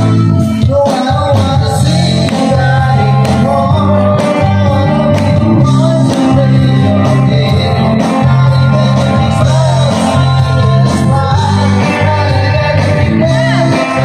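Live band playing a rock-style song, loud and steady: a singer over electric guitar, bass and drums.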